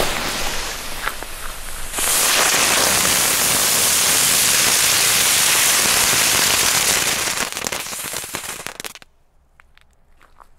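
A small circle of crackling ground bloom fireworks burning together with a loud hissing spray of sparks, which swells about two seconds in and dies away near the end. They give no real crackle, only silver sparks, which the uploader takes for a mix-up of the fillings.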